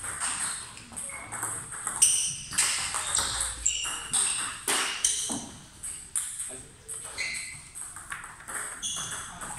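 Table-tennis balls clicking off paddles and the table in quick, irregular rallies, each hit a sharp click with a short high ringing. Hits from the neighbouring tables overlap with the near rally.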